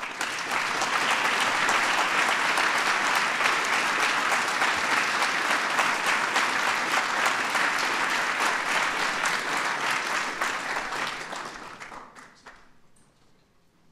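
Audience applauding: dense clapping that starts at once, holds steady for about eleven seconds, then dies away near the end.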